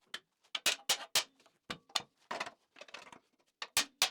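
A dozen or so light, irregular metal clicks and knocks as a freshly welded steel part is tried in place, checking that weld shrinkage hasn't spoiled the fit.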